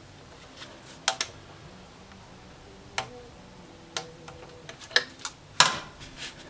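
Irregular sharp clicks and knocks of engine-bay hose clips and pipes being worked loose by hand, about seven in all, with the loudest near the end.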